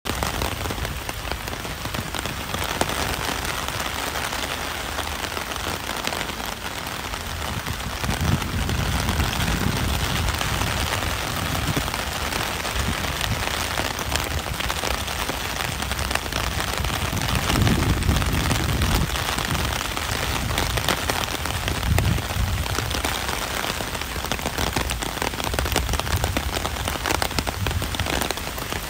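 Steady rain falling, an even hiss of drops, with a deeper low sound swelling up a few times.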